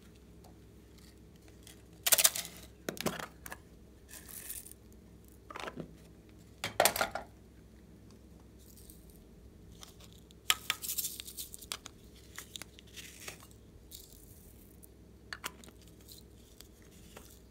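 Small plastic bottles of glitter and sequins being handled, opened and shaken out over a tray of slime: short rattling, clicking and crinkling bursts with quiet gaps between them. The loudest come about 2 and 7 seconds in, with a busy run of them between about 10 and 13 seconds.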